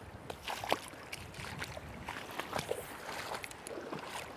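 Rubber boots wading through shallow floodwater: irregular sloshing and splashing steps.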